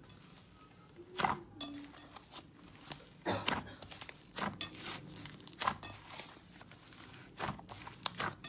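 Thick, putty-like slime being kneaded and squeezed by hand, giving soft squishes and irregular sharp pops and crackles as trapped air is pressed out, a few of them louder.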